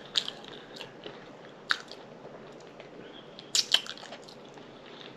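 Close-miked mouth sounds of eating: a few sharp, wet clicks and smacks, the loudest pair about three and a half seconds in, over a low steady hiss.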